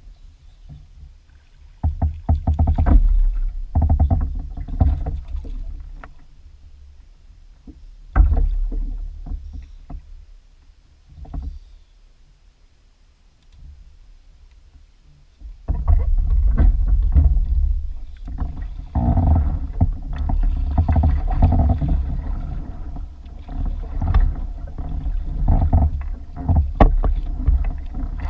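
Native Slayer Propel 10 fishing kayak on the water: a low rumble with many knocks from the hull and the fittings on board. It comes in two loud spells, with a quieter stretch in the middle.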